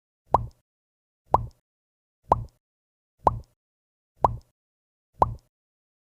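A short cartoon pop sound effect with a quick upward pitch sweep, repeated six times at about one per second with silence between.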